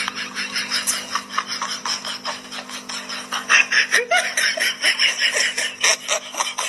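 Laughter: a fast run of short, sharp pulses over a steady low hum.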